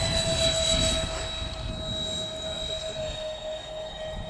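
Twin 70 mm electric ducted fans of an RC Boeing 737 MAX model airliner whining steadily at climb power on a go-around after an aborted landing. Wind rumbles on the microphone underneath.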